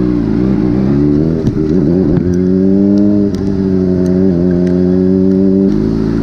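Honda CBR600RR inline-four motorcycle engine running under way, with its pitch falling and rising in the first two seconds, then holding steady and stepping down near the end.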